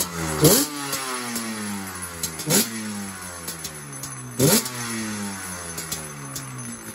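Yamaha Banshee's two-stroke parallel-twin engine running and revved sharply three times, its pitch sliding slowly back down after each blip.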